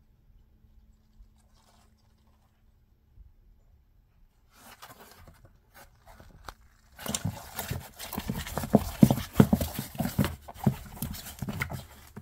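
Pixie frog (African bullfrog) and giant centipede struggling on the floor of a plastic tub. It is quiet at first, with some scratching from about four and a half seconds, then from about seven seconds a loud, rapid clatter of knocks and scrabbling against the plastic as the frog seizes the centipede.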